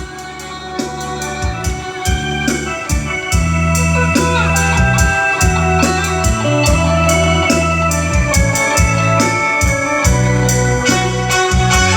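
Music led by an electronic organ or keyboard over deep bass notes and a steady clicking beat, played through a sound system as a sound test. It gets louder about three seconds in.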